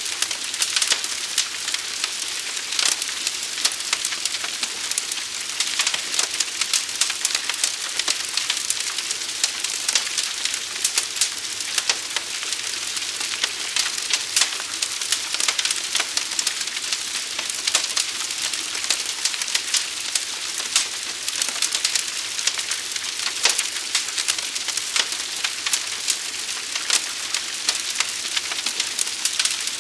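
Wood fire burning and crackling: a steady hiss with many sharp pops and snaps scattered throughout.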